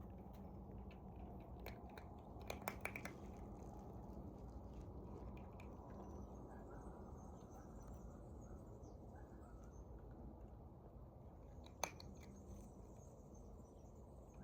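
Cat eating, with faint chewing. A quick cluster of sharp clicks comes about two and a half seconds in, and a single click comes near the end.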